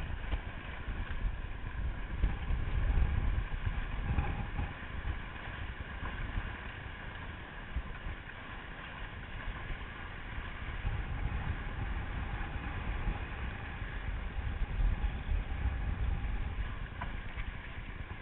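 Gusty wind buffeting the microphone over the rush of water along the hull of a small trimaran under way in choppy water. The gusts swell and fade.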